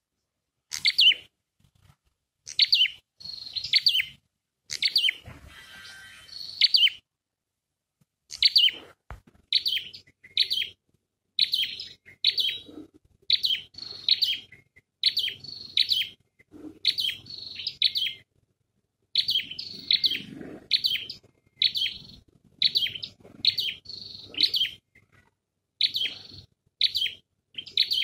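Small caged decoy bird (Vietnamese 'sâu đỏ') calling over and over: short high chirps in phrases of two or three notes, about one phrase a second, with a pause of about two seconds roughly a quarter of the way in.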